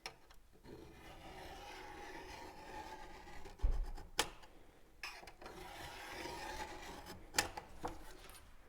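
A hand tool scraping along sheet steel in two long, steady stretches, with a few sharp knocks in between.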